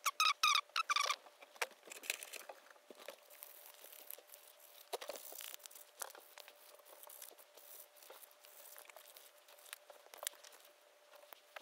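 Small wooden lure body being hand-sanded against a sheet of sandpaper: soft, irregular scratching and rubbing with small clicks. A quick run of short high-pitched squeaks comes in the first second.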